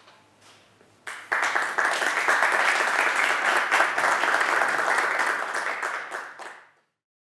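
Audience applauding: the clapping starts suddenly about a second in, holds steady, and fades out near the end.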